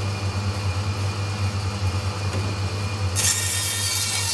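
Meat bandsaw running with a steady low hum and a faint steady whine. A little past three seconds in, the blade cuts through the lamb, adding a harsh rasp that lasts to the end.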